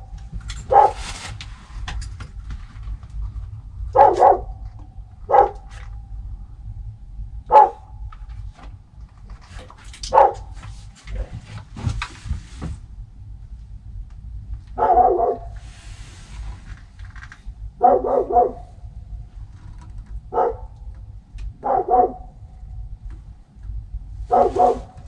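A dog barking in single short barks, about ten of them a couple of seconds apart, with a steady low hum underneath.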